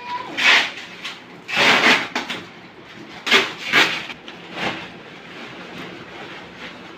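Cardboard boxes of firecrackers being handled, shifted and scraped, in about five short rustling bursts over the first five seconds.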